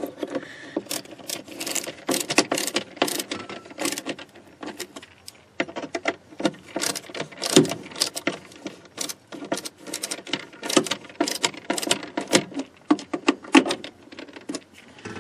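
Quick irregular metallic clicks and clinks of hand tools and metal parts as a new hood latch is fitted and fastened in place.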